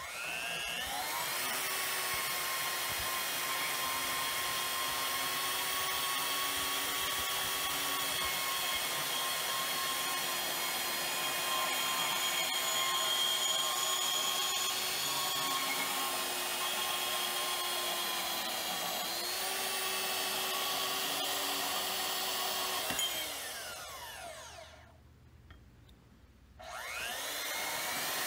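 DeWalt DWM120K portable bandsaw cutting through 1/8-inch-wall square steel tubing: it spins up, then the motor runs steadily with a whine as the blade saws through the steel. About 23 seconds in it winds down to a stop, and after a pause of about two seconds it starts up again near the end.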